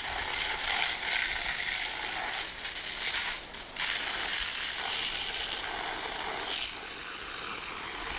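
Water from a fire hose spraying with a steady hiss, briefly dropping away about three and a half seconds in.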